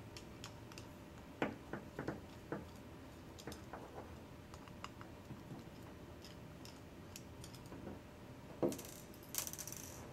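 Small screwdriver unscrewing the LED board screws in a landscape spotlight fixture: scattered light clicks and taps, a few sharper ones about one and a half to two and a half seconds in. Near the end come a thump and a short clatter as the tool and the screws are set down on the desk.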